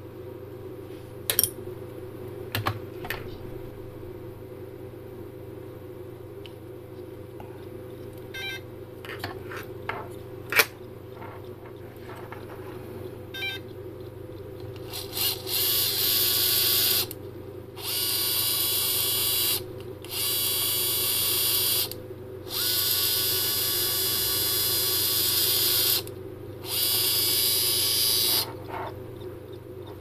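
An ASME-MR series high-torque 360-degree geared servo's motor and gearbox whine in five runs of about two to three seconds each, starting about halfway through, as it is driven from a radio transmitter stick. Before that there are a few sharp clicks and taps.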